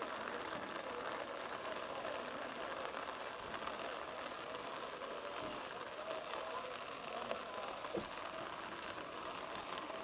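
Open-field ambience of a rugby match: a steady background hiss with faint, distant shouting from players, and a single sharp knock about eight seconds in.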